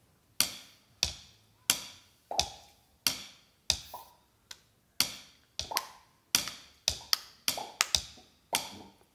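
A staged sound effect of steps on a hard surface: sharp, hollow knocks, each with a short ring. They start about every two-thirds of a second, then come quicker and unevenly, in pairs, near the end.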